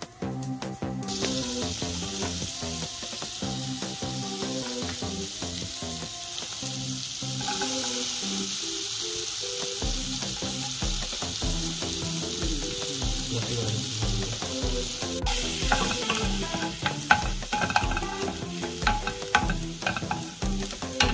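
Chopped garlic sizzling in foaming melted butter in a nonstick pan. The sizzle starts about a second in and grows louder partway through. In the last few seconds a wooden spatula stirs and scrapes in the pan, with quick clicks. Background music plays underneath, with a steady beat from about halfway.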